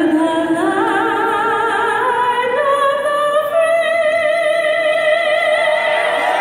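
A woman's solo voice singing through the stadium loudspeakers with wide vibrato. She climbs in steps and then holds one long high note.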